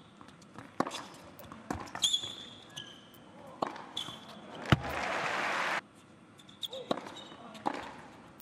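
Tennis rally: sharp pops of racket strings hitting the ball and ball bounces, with high squeaks of tennis shoes on the court. About two thirds of the way in comes roughly a second of crowd applause that cuts off abruptly. After it there are a few single ball bounces about a second apart, the server bouncing the ball before serving.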